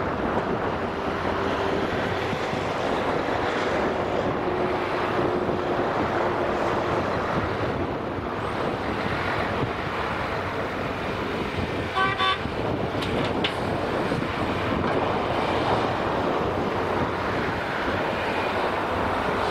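Volvo EC480D L crawler excavator's diesel engine working steadily as it digs and loads, with wind on the microphone. About twelve seconds in, a quick series of short horn toots sounds, with one more a second later.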